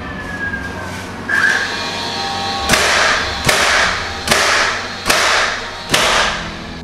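Power nail gun driving nails into barnwood boards: five sharp shots, about one every 0.8 s, each with a short fading hiss.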